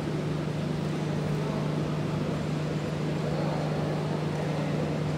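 A steady low hum over an even background hiss, with no distinct events.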